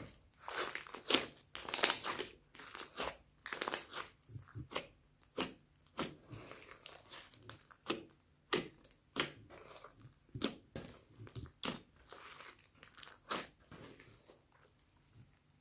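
Thick slime flecked with small beads, stretched, folded and squeezed by hand, giving an irregular run of sticky crackles and pops, several a second. It eases off near the end.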